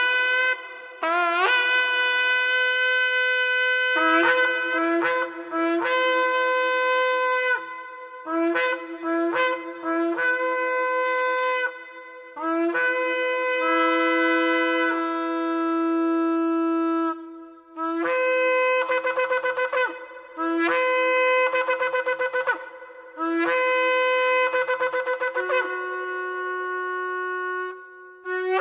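Shofar blown in a series of blasts, short calls mixed with long held notes. Several notes slide up in pitch as they start, and some waver rapidly.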